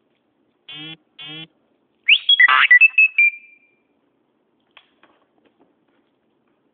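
A phone text-message alert: two short buzzing tones, then a loud, brief electronic jingle of high notes.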